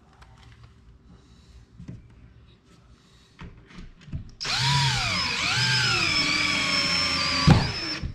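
Cordless drill driving a screw through a thermostat wall plate into the wall. The motor whine starts about halfway through, sags in pitch twice as the screw bites, then runs steady and stops with a sharp knock near the end.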